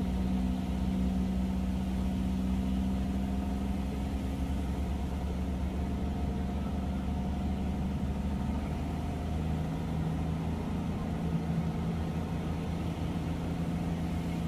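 Diesel engines of heavy trailer trucks idling, a steady low hum whose pitch drops slightly about nine seconds in.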